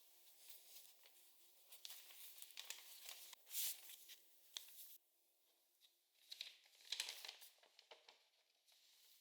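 Quiet, irregular crinkling and rustling of handled packaging, in short bursts with a brief lull about five seconds in.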